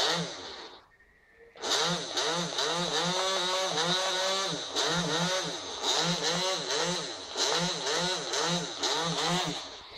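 Small electric motors of a homemade model submarine's propeller, hydroplanes and rudder running together. They make a whine that rises and falls in pitch over and over, about twice a second, after a short break about a second in.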